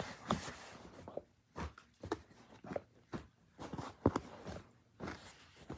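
Scattered light knocks, taps and rustling of things being handled, with about half a dozen soft thumps spread irregularly through.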